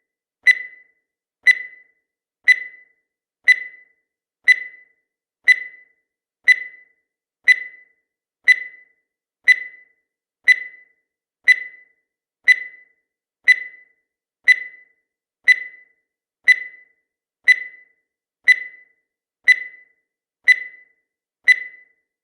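Countdown timer sound effect: a short, high electronic beep once every second, each one fading away quickly.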